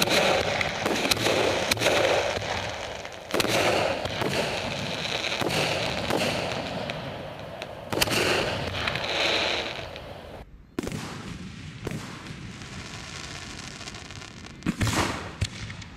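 Aerial fireworks launching and bursting: a rapid run of sharp bangs with crackling between them, thinning after a sudden break about two-thirds through, then a cluster of loud bangs near the end.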